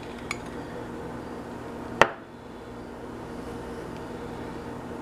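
A metal spoon clinks once, sharply, against a dish about two seconds in, with a faint tick just before, over a steady low hum in the kitchen.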